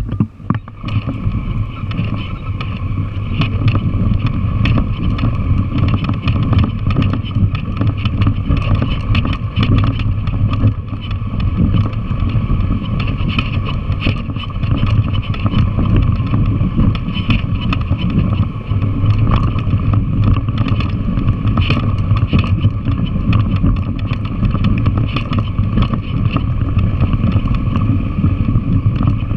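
Yamaha TW200's single-cylinder four-stroke engine running steadily while the bike rides over a loose rocky dirt trail, with frequent short clicks and knocks from stones and the bike rattling.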